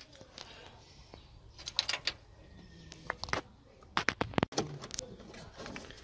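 Light metallic clicks and knocks as the wiper motor's mounting frame and bolts are handled and seated, in short clusters about two, three and four seconds in.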